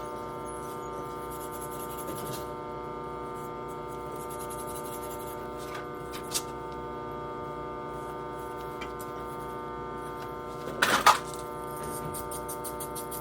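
A steady machine hum with several tones, with a single sharp click about six seconds in and a short clatter near the end.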